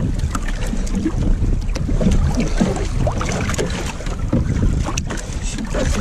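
Strong wind buffeting the microphone over water splashing and sloshing against a small sailing boat's hull as it sails, with scattered light knocks and clicks.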